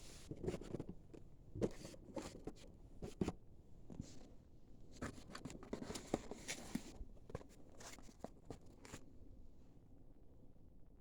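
Hands handling small objects and packaging: soft rustling and scraping broken by scattered light clicks and taps, a few of them sharper.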